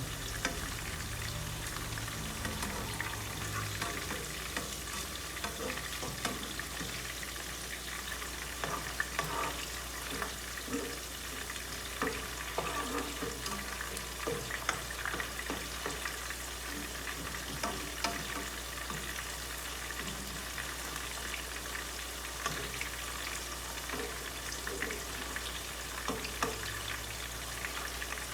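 Steak frying in hot grease in a pan on a bed of onions and green peppers: a steady sizzling hiss with scattered pops and crackles.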